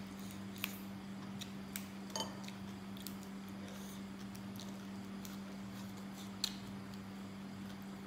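Scattered crisp little snaps and clicks of fresh water spinach stems being broken by hand, mixed with chewing, over a steady low hum. Two sharper snaps stand out, about half a second in and near the end.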